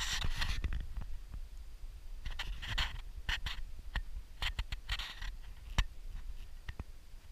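Handling noise from a handheld camera being swung around: scraping and rustling with sharp clicks, over a low wind rumble.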